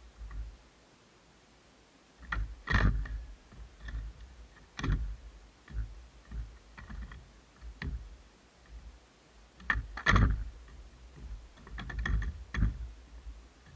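Skateboard being popped and landing: sharp knocks of the tail and the deck and wheels hitting the ground, spaced a second or two apart, loudest about three and ten seconds in.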